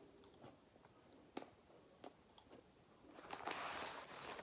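Faint chewing of a crispy spicy chicken sandwich, with a few small mouth clicks and a louder, noisy stretch of chewing near the end.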